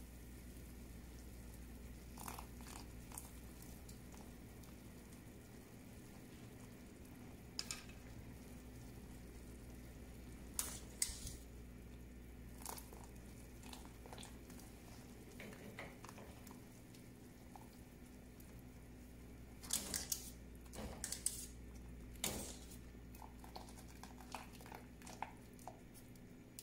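Scattered light clinks and taps of a wire-mesh kitchen strainer against a stainless steel pot and a glass bowl of ice water, over a steady low hum. The strongest cluster of clinks comes near the end.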